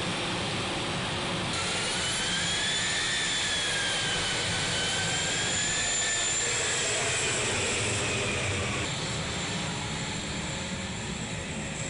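A-10 Thunderbolt II's twin TF34 turbofan engines running as the jet taxis past, a dense jet noise with a high whine that wavers up and down in pitch. The whine fades and the noise drops a little near the end.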